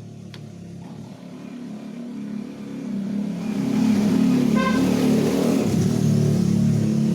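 Honda Grand motorcycle's small single-cylinder four-stroke engine running, its revs and loudness rising from about two and a half seconds in and then held high. A brief high tone sounds about halfway through.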